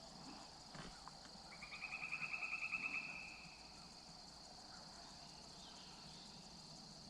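A wild animal's call outdoors: one rapid trill of about ten pulses a second, lasting under two seconds, with the pulses slightly falling in pitch at the start.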